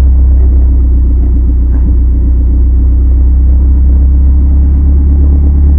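Car engine idling with its exhaust heard from close underneath the car: a deep, steady drone with a fast even pulse.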